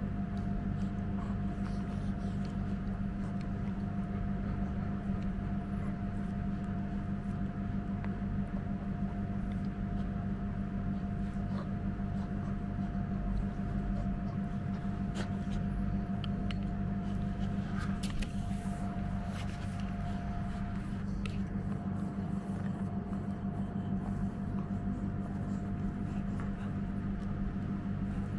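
Steady low hum, with faint clicks and scrapes from a puppy chewing and mouthing a plush toy and a rope toy, most of them in the middle of the stretch.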